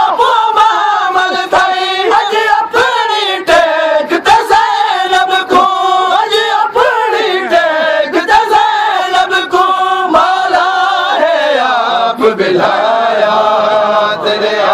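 Men's voices chanting a Shia noha lament with a melodic refrain, over many sharp slaps of matam chest-beating.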